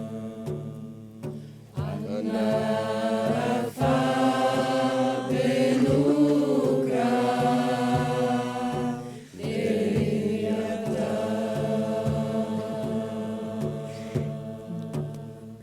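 Several voices toning together in long, sustained held notes, chant-like, with breaks between phrases about two, four and nine seconds in, over a low repeating drone.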